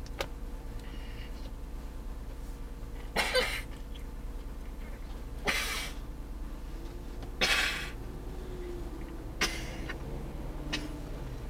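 A person coughing inside a car: about four short, harsh coughs a couple of seconds apart, with a weaker one near the end.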